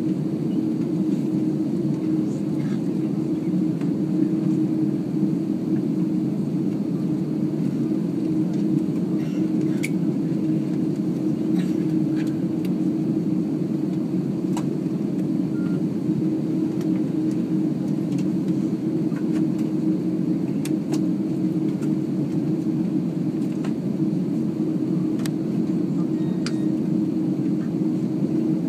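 Airbus A330-300 cabin noise while taxiing: a steady low rumble from the jet engines at taxi idle, heard inside the cabin, with a steady hum and a few faint clicks.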